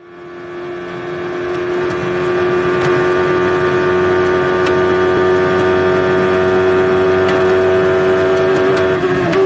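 Onboard sound of a 1990 Footwork Arrows A11 Formula 1 car's Cosworth DFR V8, held at a steady high pitch at full revs down a straight. It fades in over the first couple of seconds, a few brief clicks sound through it, and the revs start to fall right at the end.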